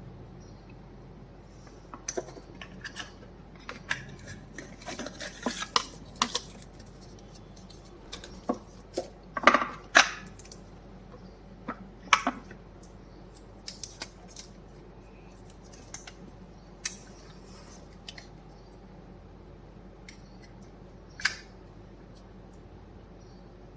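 Earbud box and charging case being handled during unboxing: scattered clicks, taps and rustles at irregular intervals, the loudest cluster about ten seconds in.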